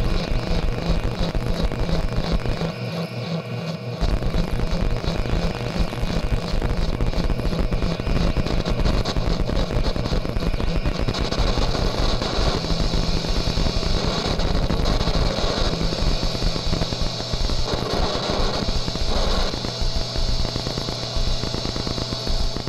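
Electronic noise music: a dense buzzing drone with a fast pulse over a steady low hum. The bass drops out for about a second some three seconds in, and a bright hiss grows over it from about halfway.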